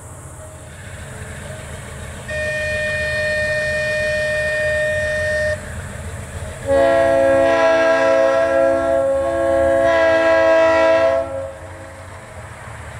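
A horn blowing twice over a steady low rumble. A single-note blast of about three seconds comes about two seconds in, then a louder, longer chord of several notes sounds together for about four and a half seconds.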